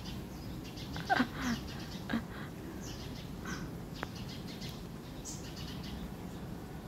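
Short, high animal chirps scattered through, with a louder falling call about a second in.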